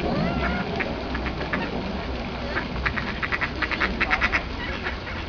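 Mallards quacking: scattered calls, then a quick run of short quacks about halfway through. A steady low rumble lies underneath.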